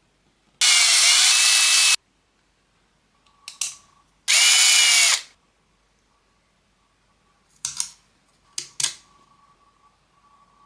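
Small power drill/driver running in two short bursts, the first about a second and a half long and the second about a second, its motor whine dipping and rising in pitch. A few small clicks and knocks come between and after the bursts.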